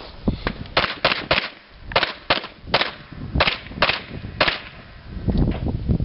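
A string of about nine handgun shots in quick groups of two and three, fired over about four seconds during a timed stage at a pistol match.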